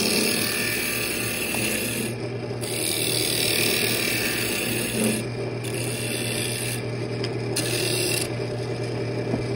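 A wood lathe runs with a steady hum while a hand-held turning tool cuts into a spinning wooden mug lid, making a scraping cutting noise. The cutting breaks off briefly several times as the tool comes off the wood.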